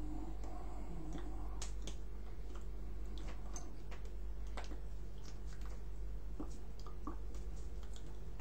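A steady low hum with scattered faint clicks and ticks.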